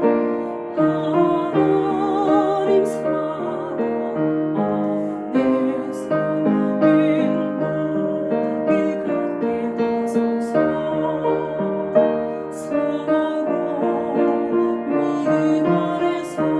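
A woman singing the alto part of a church choir song, with vibrato on held notes, over piano accompaniment.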